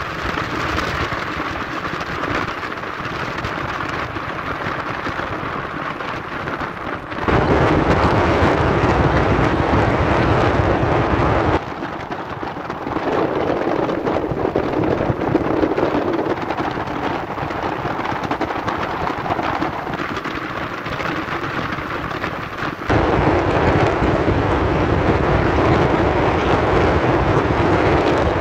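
Wind rushing on the microphone: a steady, noisy roar that jumps abruptly louder about seven seconds in, drops back about four seconds later, and jumps up again near the end.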